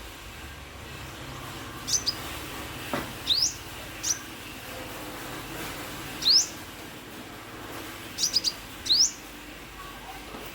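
Sunbird calling with short, high chirps, several of them sharply rising, at irregular intervals, including a quick run of three near the end. A single sharp click sounds about three seconds in.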